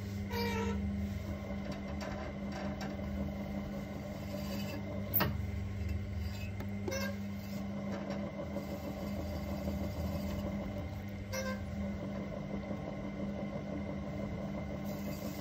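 Electric pottery wheel motor running with a steady hum as the wheel head spins, with a few faint clicks and one sharper tap about five seconds in.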